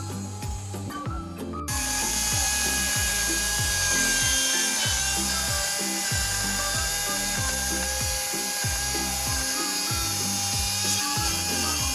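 Chainsaw running and carving into wood, cutting in abruptly about two seconds in and holding steady, over background music with a repeating beat.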